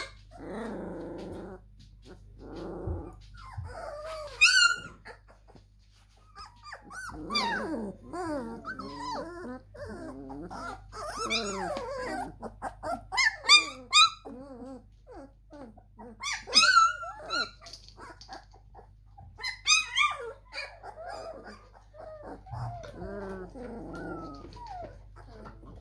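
A litter of three-week-old German Shepherd–Labrador mix puppies calling over one another: high-pitched squeals and whines that slide up and down in pitch, in short overlapping bursts, with a few low grumbles.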